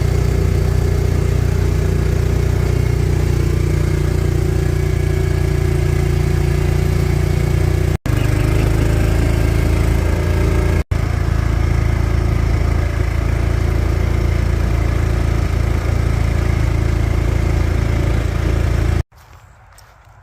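A vehicle engine running steadily with a low hum. It drops out briefly twice, about 8 and 11 seconds in, and stops abruptly near the end.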